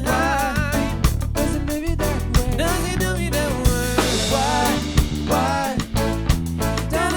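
Live band playing a soul-pop song, with a steady drum-kit beat, bass and guitar, and a wavering melody line with vibrato over them.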